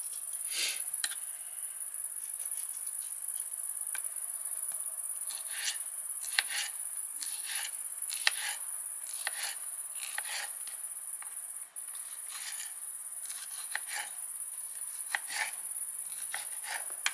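Kitchen knife chopping a tomato on a wooden cutting board: irregular short taps of the blade on the board. Under it runs a steady high-pitched drone.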